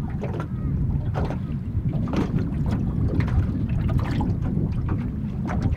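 Wind buffeting the microphone with a steady low rumble, and small waves lapping and slapping against the side of a small boat's hull in short irregular splashes.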